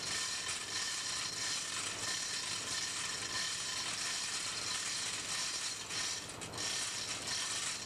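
Steady mechanical noise, a dense hiss with a couple of faint steady tones, that dips briefly about six seconds in.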